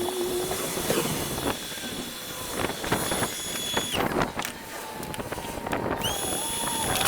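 A high-pitched electric motor whine that cuts off about four seconds in and spins back up about two seconds later, with scattered knocks and a lower wavering tone alongside.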